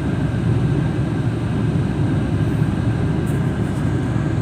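Steady engine and tyre rumble of a moving vehicle driving along a road.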